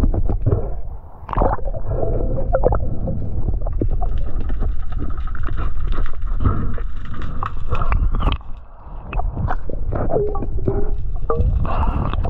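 Underwater audio from a swimming diver's camera: muffled low rumbling and gurgling water noise with scattered clicks and knocks. A faint steady hum joins it from about four to eight seconds in.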